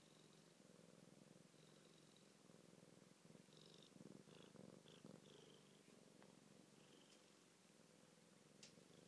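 Siamese cat purring steadily, close up. The small bell on its collar tinkles a few times, most around the middle, when the cat moves.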